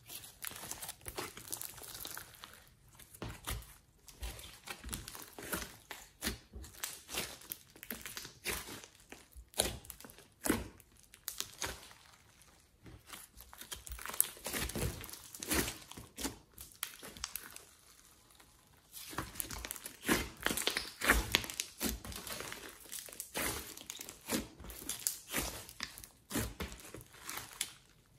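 Hands squishing, folding and stretching a large mass of glossy slime mixed with clay, making irregular sticky crackles, pops and soft thunks that come in clusters, with a few quieter pauses.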